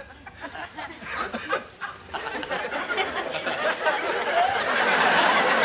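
Studio audience laughter, starting as scattered laughs and swelling into a dense, louder wave of laughing toward the end.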